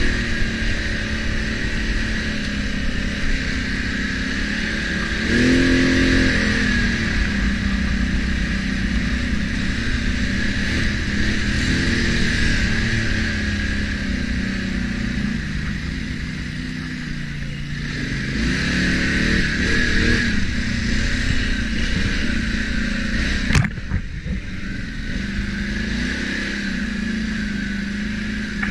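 ATV engine running along a trail with a steady high whine over it, revving up twice, about five seconds in and again near twenty seconds. A single sharp knock comes a few seconds before the end.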